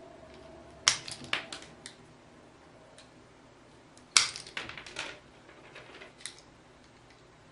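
Insulation being stripped from the ends of 1.5 mm² copper installation wire with a hand tool: sharp clicks and snaps in quick clusters, one about a second in and another about four seconds in, with a single click near six seconds.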